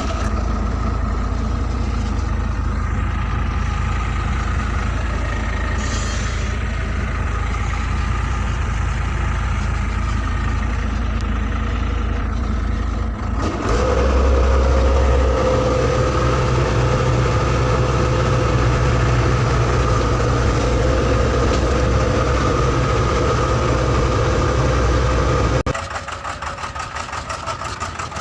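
Heavy diesel engine of a backhoe or excavator running steadily. About halfway through it works harder and louder, with a steady whine, then drops back to a lower, quieter running sound near the end.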